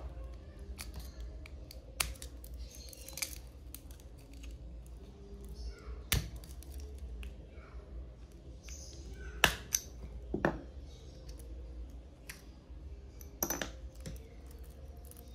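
A small metal pick scraping and clicking against a stainless-steel watch's case back as it is pried off, with scattered sharp metallic clicks and short scrapes, the loudest about halfway through.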